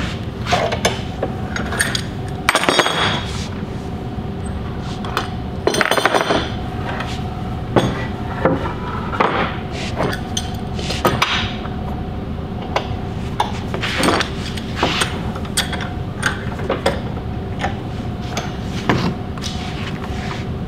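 Metal clamps and tools handled and repositioned on a wooden workbench: scattered clinks, clicks and knocks at irregular intervals, over a steady faint background hum.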